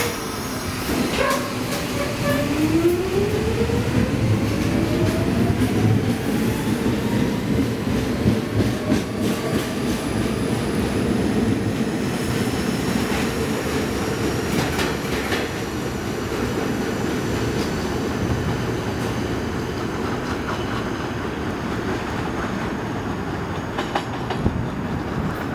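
R46 subway train pulling out of the station. Its traction motors whine, rising steadily in pitch for about ten seconds as it accelerates, while the wheels rumble and clack over the rail joints as the cars roll past.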